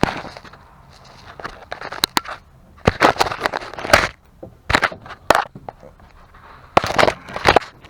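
Bursts of sharp clanks and rattles in about three clusters, from handling and fitting a riding lawnmower blade.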